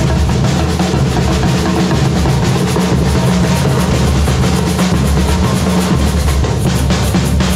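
A Brazilian supporters' drum section (bateria) playing together: large surdo bass drums and snare drums struck with sticks in a dense, continuous rhythm.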